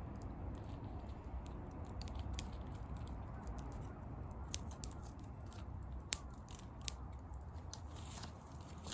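Wood fire burning with a steady low rush and scattered crackling, with three sharp pops in the second half.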